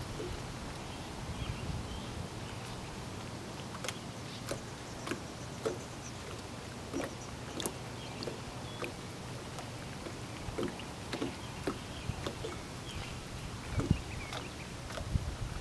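Water lapping against a small aluminium boat's hull under a steady low rumble, with scattered light clicks and faint chirps, and a few louder low knocks near the end.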